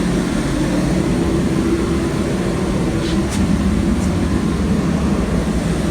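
Steady mechanical drone with a low hum, running evenly throughout, with a couple of faint light ticks about three and four seconds in.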